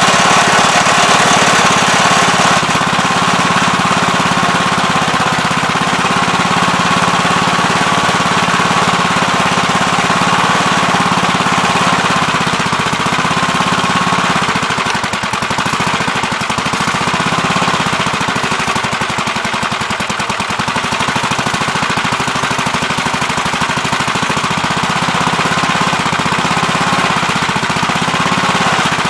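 Gravely Terramite backhoe's engine running steadily while digging a trench, with a high whine over it that wavers slightly. It eases a little about halfway through, then picks back up.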